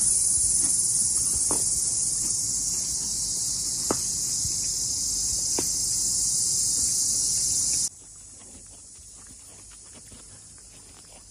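A steady, high-pitched chorus of insects buzzing, which cuts off abruptly about eight seconds in, leaving a much quieter background with a few faint ticks.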